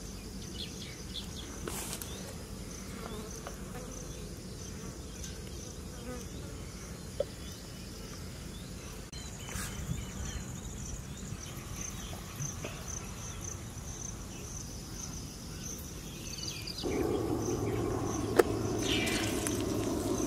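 Insects chirping steadily, a high pulsing chirp repeating evenly over a low outdoor background. A louder low rushing noise comes in suddenly near the end.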